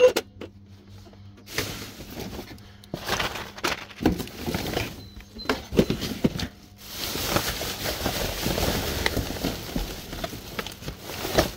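Gloved hands rummaging through a bin of cardboard boxes and plastic bags: plastic crinkling and rustling, with knocks of boxes being shifted. It opens with a sharp knock, and from about seven seconds in there is a longer stretch of steady plastic crinkling.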